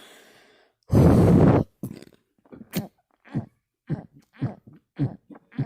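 Closed-mouth burps from a man, short and pitched, coming in a rapid run of about two a second. About a second in there is a louder, noisy rushing blast lasting under a second.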